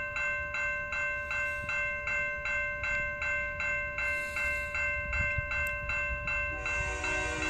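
Railway level-crossing bell ringing evenly, about two and a half strokes a second, over a low rumble. Near the end an approaching locomotive's multi-note horn comes in under the bell.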